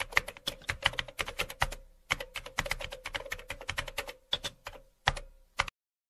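Typing sound effect: rapid key clicks, about six a second, with a short break about two seconds in, stopping abruptly near the end.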